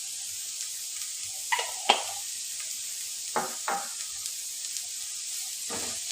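Onion, celery and garlic sizzling as they fry in a pan, with a spatula scraping and knocking against the pan about five times. The loudest knock comes about two seconds in.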